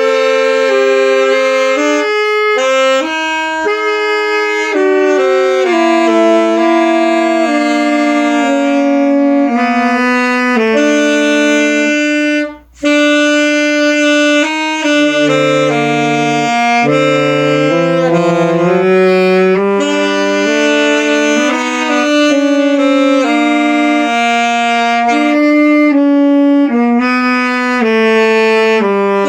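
Saxophone playing a melody in a steady run of held and moving notes, with a brief pause for breath about a third of the way through.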